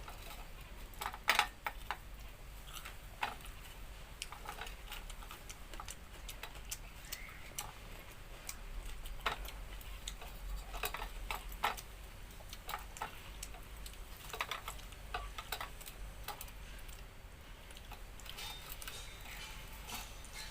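A person eating a meal by hand: irregular small clicks and smacks of chewing and mouth sounds, spread unevenly with short pauses between them.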